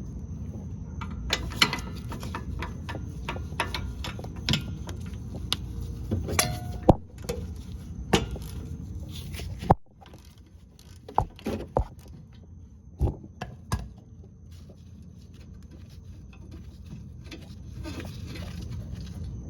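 Scattered sharp clicks and metallic knocks of tools and brake parts being handled, over a steady low background hum. The background drops away suddenly just before halfway, and fewer, louder knocks follow.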